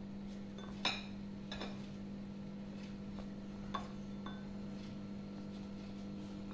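A plastic spoon knocking and clinking against glass bowls while scooping crushed biscuit crumbs: a few light knocks, the loudest about a second in. A steady low hum runs underneath.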